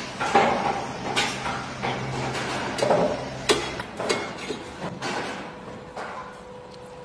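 A series of sharp knocks at an uneven pace, roughly one or two a second, over a steady low hum that stops a little after halfway.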